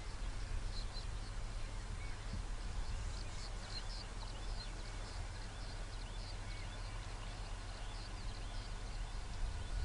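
Small birds chirping, many short high calls over a steady low rumble.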